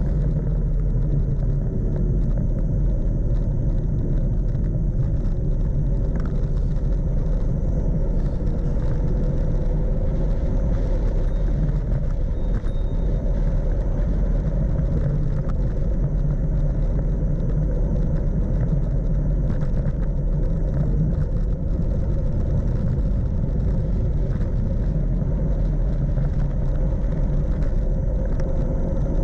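Steady low rumble of wind on the microphone of a camera riding a folding bicycle downhill, mixed with tyre noise on asphalt.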